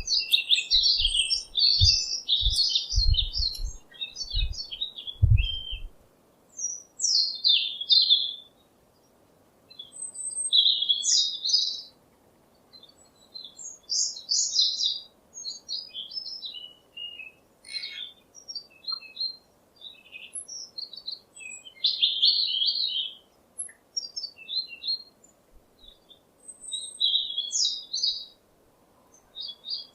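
Small songbirds chirping and twittering in quick, high phrases with short pauses between them. Low thumps sound under the calls during the first six seconds.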